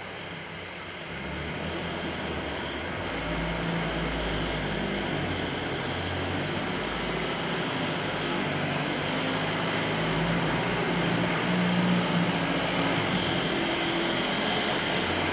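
A steady low droning hum under a hiss, growing a little louder about a second in.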